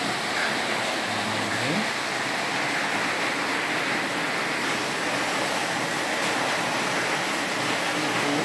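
Steady rushing background noise, even and unchanging, with a brief low hum that rises in pitch about a second and a half in.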